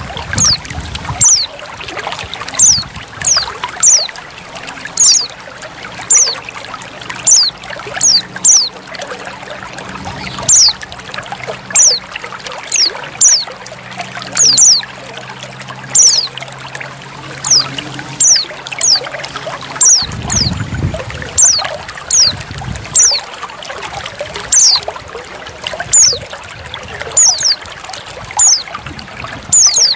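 Female white-eye (pleci) calling in short, high notes that fall sharply in pitch, repeated about once or twice a second. Under the calls runs a steady trickle of running water.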